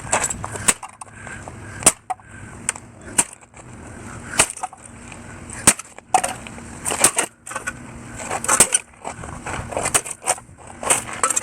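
Irregular sharp clicks, knocks and rattles of hard objects being handled, several of them every second over a low rumbling background.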